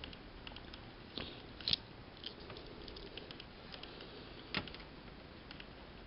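A few faint, sharp clicks and taps, spread out over several seconds, as small Swiss Army pocketknives are handled and set down on a tabletop.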